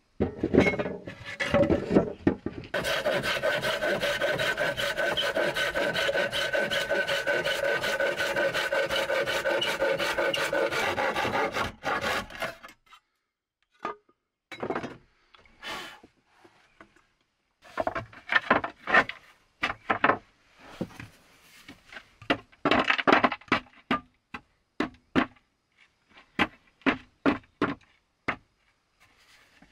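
Wooden boards being worked by hand: a few knocks, then about ten seconds of fast, steady scraping through wood that stops abruptly. After a short pause come groups of brief rubbing strokes on a board.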